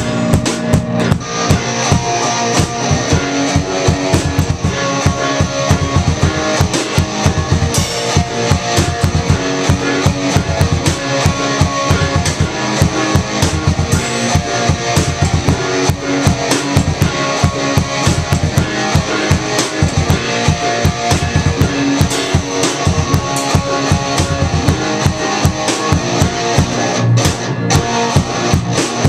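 Band music with a driving drum kit, bass drum and guitar, steady throughout.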